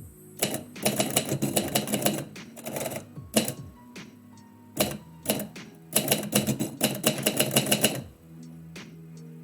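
Typewriter being typed on: two fast runs of key strikes, with a few scattered single strikes between them.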